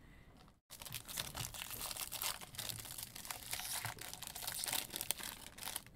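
Foil wrapper of a Topps baseball jumbo pack crinkling and crackling as it is handled and torn open by hand, starting just under a second in.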